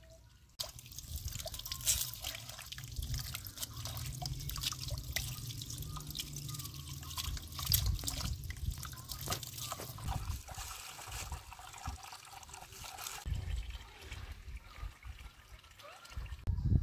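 Water running from a hose, splashing and trickling onto a plate and into a pot as raw meat and an onion are rinsed under it. It starts abruptly about half a second in and gets quieter near the end.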